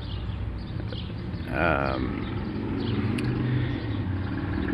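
A vehicle engine running with a steady low hum, and a brief louder pitched sound about one and a half seconds in.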